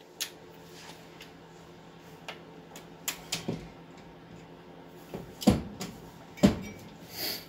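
Hand tools clinking and knocking against metal as a socket and extension are handled at a car's front wheel hub. The knocks are scattered and irregular, and the two loudest land about five and a half and six and a half seconds in. A faint steady hum runs underneath.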